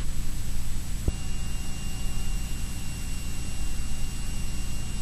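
Cirrus SR22T's turbocharged six-cylinder piston engine running steadily at low power, heard from inside the cabin as a constant drone with thin high whining tones above it. A single click about a second in, after which a second high tone joins.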